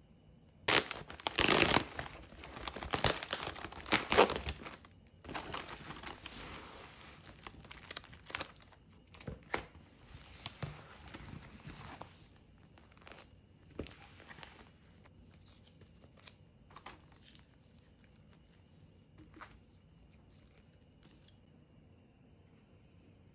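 Crinkling and tearing of packaging as it is handled. It is loudest over the first few seconds, then comes in sporadic rustles and small clicks that die away about 21 seconds in.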